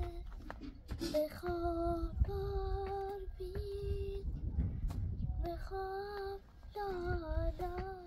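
A high-pitched voice, a child's or a woman's, singing unaccompanied: a simple melody of held notes with short breaks between phrases, over a low rumble.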